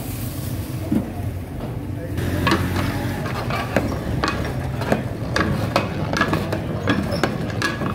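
Cooking utensils knocking and clinking sharply and irregularly, a few times a second, from about two seconds in, over a steady low hum and murmuring voices.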